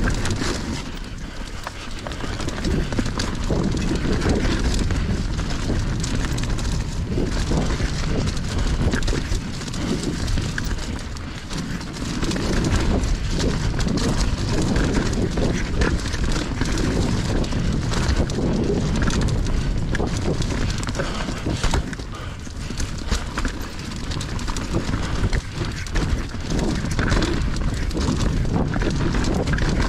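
Mountain bike rolling along a dirt trail: a steady rumble of knobby tyres on the ground, with a constant run of small knocks and rattles from the bike jolting over bumps. The rumble eases off briefly a few times.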